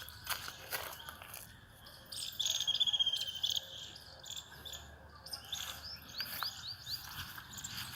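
Small birds chirping outdoors: a quick chirping trill about two seconds in, the loudest part, and a run of four short rising chirps near the end.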